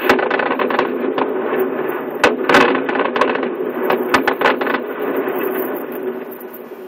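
Fireworks show: a quick run of sharp bangs and crackling over a continuous rumble, thinning out and fading over the last couple of seconds.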